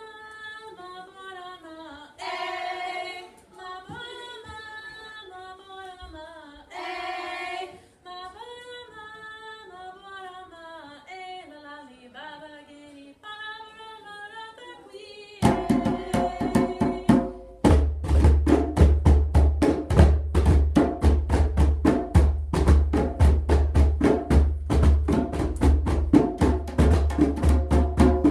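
Voices sing a traditional Baga song in the Susu language unaccompanied, with two short louder sung passages in the first part. About halfway through, a group of djembe hand drums comes in with fast hand strikes. Deep bass strokes join a couple of seconds later, and the singing carries on over the drumming.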